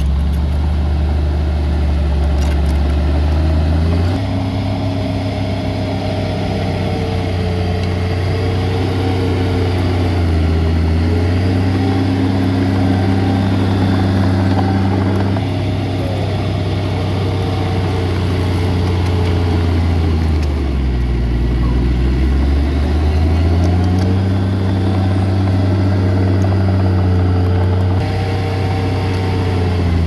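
Heavy diesel engine of an earthmoving machine running continuously, its pitch stepping up and down several times with a deep dip and recovery about two-thirds of the way through.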